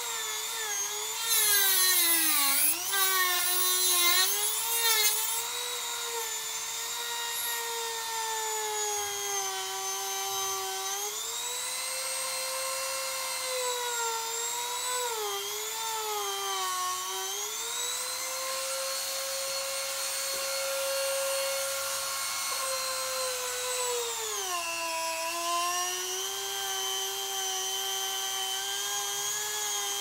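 Corded Dremel rotary tool with a cut-off blade cutting through an ATV tire's bead and its steel belts at the rim. Its high motor whine dips and rises in pitch as the blade bogs in the rubber and recovers, with louder, harsher grinding for a few seconds near the start.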